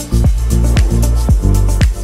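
Background music with a heavy bass and a steady beat, about two beats a second.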